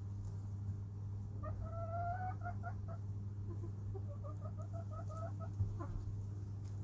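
Chicken clucking: one drawn-out call that rises slightly, followed by a quick string of short clucks, and another run of short clucks about four seconds in. A steady low hum runs underneath.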